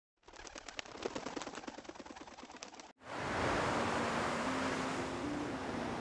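A rapid, irregular clicking and fluttering, then an abrupt cut about three seconds in to the steady rush of surf breaking on a beach, with faint low held notes beneath it.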